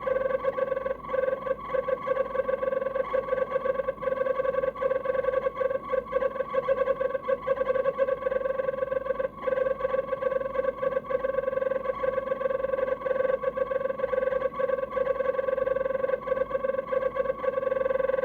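Faulty refrigerator-compartment fan motor of an LG DIOS Objet Collection refrigerator (M872GBB252) running with a steady droning tone and a fast, fluttering unevenness: the noise of a failing fan motor.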